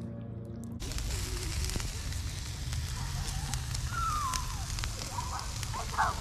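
Charcoal grill fire hissing and crackling with scattered pops under a whole spatchcocked chicken on skewers. It cuts in sharply about a second in, after a steady low hum.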